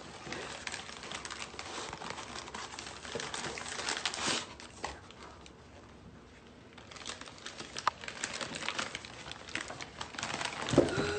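Plastic and foil packaging crinkling and rustling as it is unwrapped by hand, with a quieter pause about halfway through. A short rising vocal sound comes just before the end.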